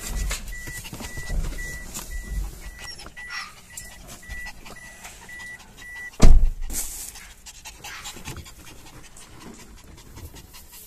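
A dog panting inside a car, over the car's warning chime, which beeps about three times a second. About six seconds in the chime stops and there is a single loud thump.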